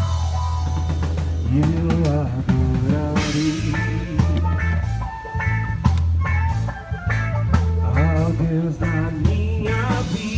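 Music with drums, a heavy bass line and a wavering lead melody line.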